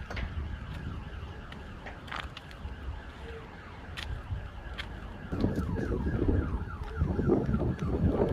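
An electronic alarm sounding, its tone sweeping down again and again in rapid repeats, over wind rumble on the microphone that grows stronger about two-thirds of the way through.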